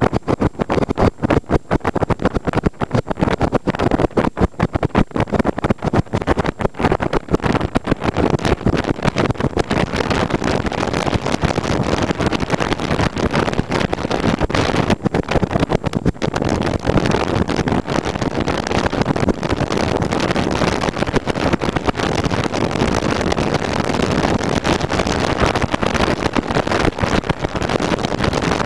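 Motorcycle riding at road speed: engine running under heavy wind rush on the microphone, choppy and fluttering for the first several seconds, then a steadier rush.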